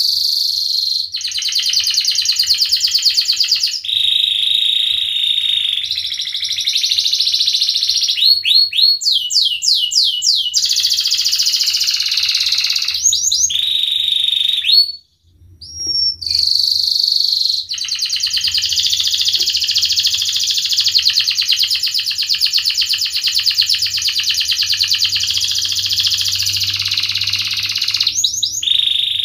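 Domestic canary singing a long, continuous song of rapid trills and repeated phrases, with runs of quick rising sweeps and a short break about halfway through.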